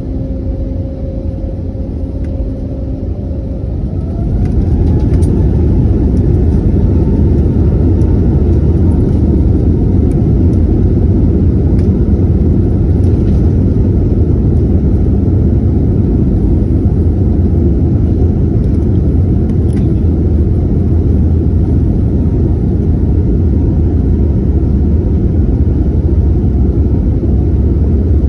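Jet engines of an Airbus A320-family airliner heard from inside the cabin, spooling up to takeoff thrust: a rising whine about four seconds in as the sound grows louder, then a steady loud low rumble through the takeoff roll.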